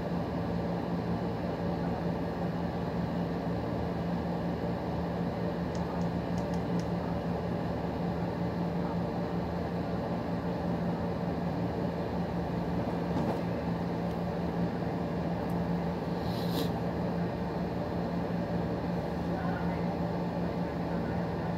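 A steady hum with a constant low tone under an even hiss, like a running appliance; a brief click about sixteen seconds in.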